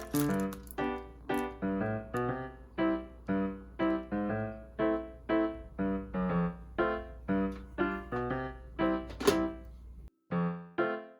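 Background music: an electric-piano-like keyboard melody of short, quickly fading notes, about two to three a second.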